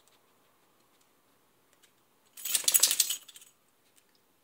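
Metal tags on a cairn terrier's collar jangling in a quick rattle lasting about a second as the dog shakes its head.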